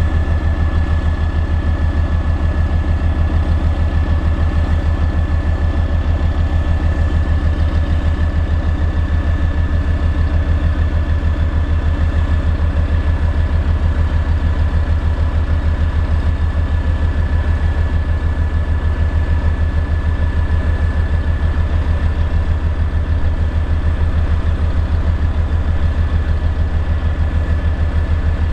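Bergepanzer 2 armoured recovery vehicle's V10 diesel engine idling steadily, with a thin steady whine over the low engine note.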